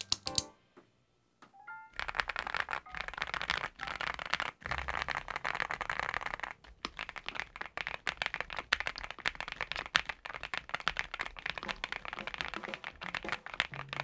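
Fast continuous typing on a NuPhy Gem80 mechanical keyboard built with an FR4 switch plate in its silicone-socket mount and PBT keycaps, a dense run of key clicks that starts about two seconds in.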